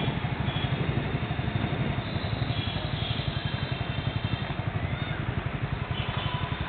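Small motorcycle or scooter engine running close by: a steady low putter with a rapid, even pulse.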